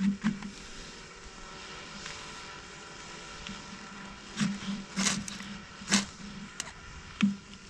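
Ferro rod (fire steel) scraped hard with a knife, about five quick strokes in the second half, throwing sparks onto birch-bark tinder until it catches. A steady low drone runs underneath during the first half.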